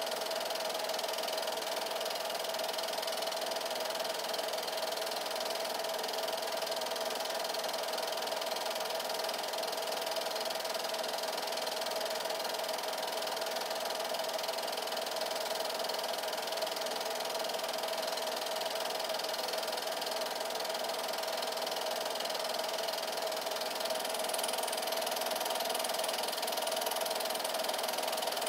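8mm film projector running with a steady mechanical whir and hiss.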